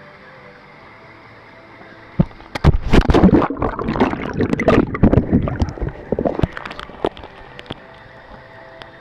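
Swimming-pool water splashing and churning around a camera plunged underwater, starting suddenly about two seconds in and dying away over the following five seconds.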